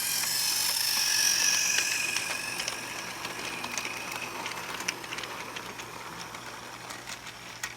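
A small electric toy-train motor running with a whine and hiss that fade away, with light clicks along the way.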